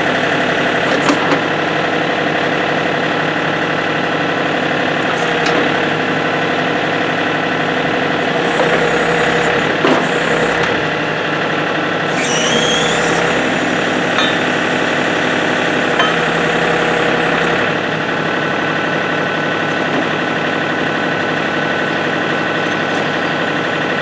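John Deere compact tractor's engine running steadily at idle, driving the hydraulics of a John Deere 47 backhoe as its boom is raised. A few brief higher hissing sounds come in midway, and the engine note drops slightly in level about three-quarters of the way through.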